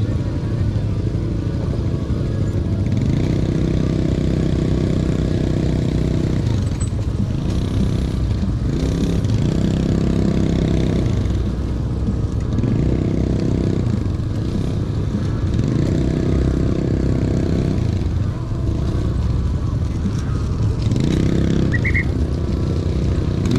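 Motorcycle engine running on the move under steady wind rumble. The engine note rises and falls roughly every five to six seconds as the rider speeds up and eases off.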